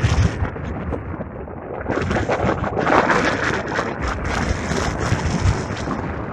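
Strong gusting wind buffeting the microphone with low rumbling thumps; a gust swells about three seconds in.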